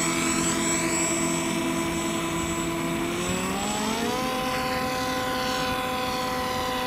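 Skywalker Sirius RC plane's electric motor and propeller whining steadily in flight, the pitch rising about halfway through and then holding at the higher note.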